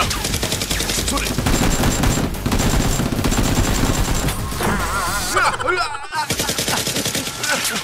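Rapid automatic gunfire sound effects: a dense stream of shots that breaks off briefly about six seconds in, then resumes.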